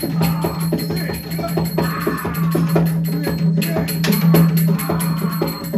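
Music for a Tamil leather shadow-puppet play: fast drumming with many sharp clicking strokes over a steady low drone.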